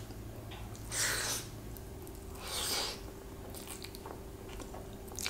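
Close-miked eating sounds of someone eating soft rice with her fingers: two short wet mouth noises about a second and a half apart, then a few faint clicks.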